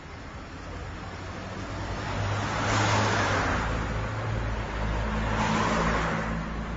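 Two cars passing by on a small-town street, one after another: tyre and engine noise swells to a peak about three seconds in, then a second car passes near the end, over a low engine hum.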